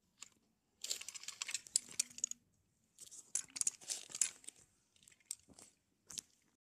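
Handling noise from a plastic toy train engine being picked up and moved about right against the phone's microphone: several separate bursts of crinkly, rustling clatter with short gaps between them.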